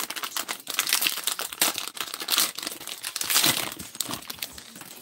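Plastic wrapper of a trading-card pack crinkling and tearing as it is ripped open by hand, a dense irregular crackle that dies down near the end.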